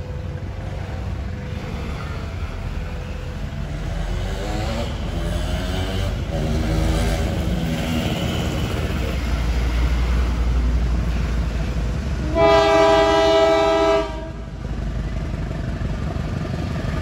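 CC 201 diesel locomotive approaching with a passenger train, its engine rumble growing louder. About twelve seconds in it sounds one horn blast, a chord of several tones lasting about a second and a half.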